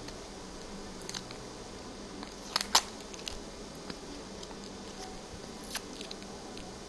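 A few short plastic clicks and crackles as the red cap of a spice jar is worked open, the loudest a quick pair of clicks a little before the middle.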